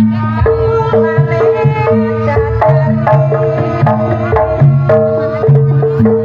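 Live traditional folk ensemble music: hand drums beat a quick rhythm of pitched low strokes under sustained melodic tones.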